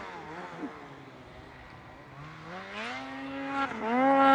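Snowmobile engines, faint at first. About two seconds in, one revs up with a rising pitch and grows louder toward the end.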